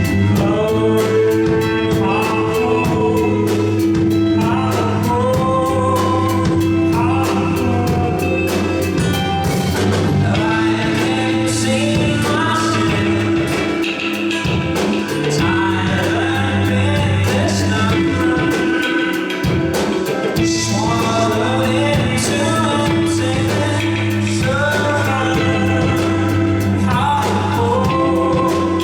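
Live rock band playing a song: a lead vocal sings long, gliding phrases over a drum kit with steady cymbal strokes and a sustained bass line.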